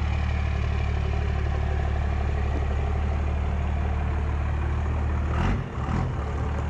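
Straight-piped diesel engine of a second-generation Dodge Ram pickup idling with a steady, tractor-like low rumble, its exhaust exiting just ahead of the rear wheel. About five and a half seconds in, the sound briefly dips and changes.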